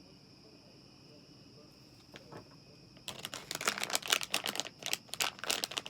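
Pin packaging crinkling and rustling in quick, irregular bursts, starting about three seconds in as the next trading pin is worked out of the pack. A faint steady high whine runs underneath.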